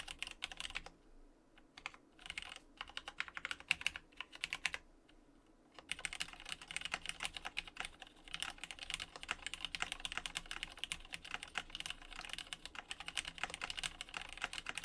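Typing on a plateless, top-mounted JER-A06 mechanical keyboard with lubed, retooled Cherry MX Black linear switches and GMK Dolch keycaps. Rapid keystrokes come in bursts, with short pauses about a second in and again around five seconds in, then steady continuous typing.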